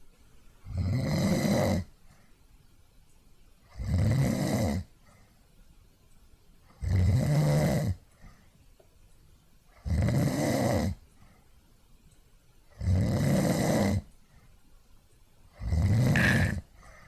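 A person snoring in a slow, even rhythm: six snores, each about a second long, coming about every three seconds.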